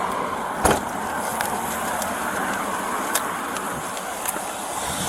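Steady roadside traffic noise with a few sharp clicks, the loudest about a second in.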